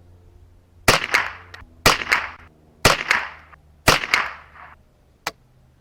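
Four .22LR rifle shots about a second apart from a semi-automatic 10/22-pattern rifle (KSA/BRN-22 build), each followed by a short ringing echo, fired into water jugs for an expansion test. A single sharp click follows about a second after the last shot.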